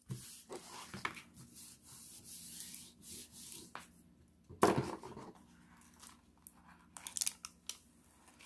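Hands rubbing and handling a diamond painting canvas and its clear plastic cover film: soft rustles and scrapes, a louder rustle about halfway through, and a cluster of crackles near the end as the film is peeled back from the adhesive canvas.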